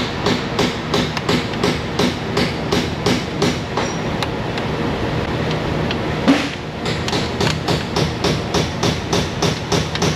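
Hand ratchet clicking in quick, even strokes, about four a second, as intake manifold bolts are run down, over a steady hum. The clicking slackens about four seconds in, a single louder knock comes about six seconds in, and the quick strokes resume.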